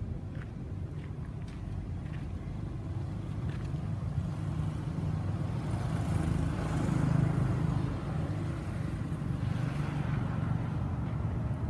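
A motor vehicle's engine running with a low rumble that grows louder to a peak about seven seconds in and then eases off, like a vehicle passing by.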